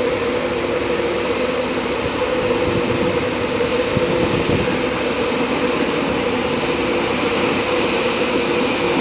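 Class 91 electric locomotive 91131 pulling a train slowly out of the platform, a steady electric hum over the rumble of the train, growing slightly louder as it draws near.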